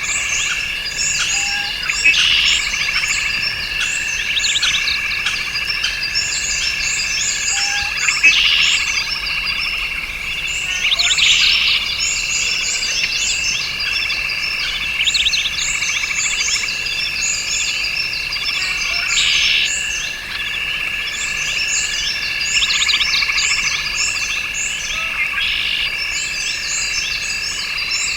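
A chorus of frogs calling: steady high trills with dense, quick repeated chirps over them and louder swells every few seconds. Birds call now and then.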